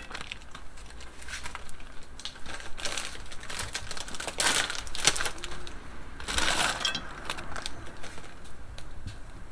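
Frozen Brussels sprouts poured from a plastic bag, clinking and rattling into a cast iron skillet, with rustling of the bag, in a few short bursts.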